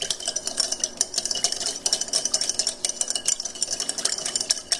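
A utensil stirring a soy sauce, hoisin and sesame oil glaze in a bowl: a rapid, continuous run of small clicks and scrapes against the bowl.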